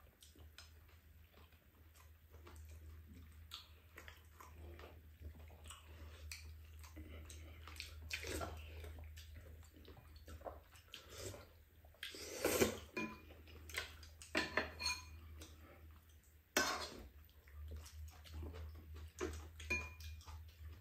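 Spoon and chopsticks clinking and scraping against ceramic bowls and a pan during a meal, in scattered light clicks with louder knocks about twelve seconds in and again a little after sixteen seconds. A low steady hum runs underneath.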